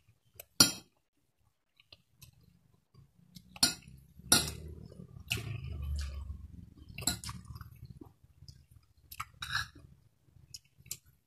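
A person eating: a metal spoon and fork clink sharply against a plate and bowl several times, with low chewing noises in between.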